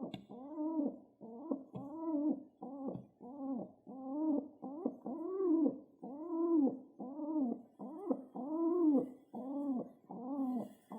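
Pet pigeon cooing over and over, each coo rising and then falling in pitch, about one and a half coos a second.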